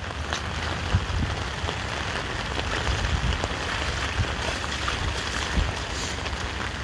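Steady rain pattering on a flooded road and standing floodwater, with a low rumble underneath.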